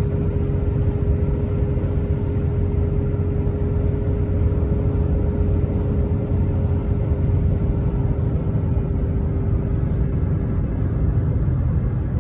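Road noise inside a moving vehicle's cabin: a steady low rumble of engine and tyres at highway speed, with a steady hum over it that fades out near the end.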